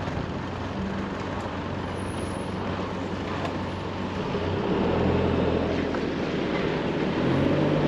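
Engine hum and road noise inside a moving vehicle, steady throughout. The engine note shifts about halfway through.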